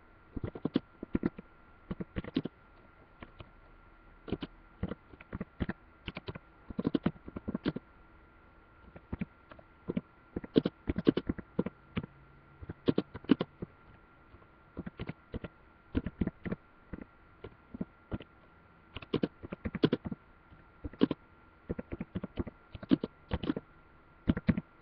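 Typing on a computer keyboard close to the microphone: irregular bursts of key clicks with short pauses between them, over a faint steady whine.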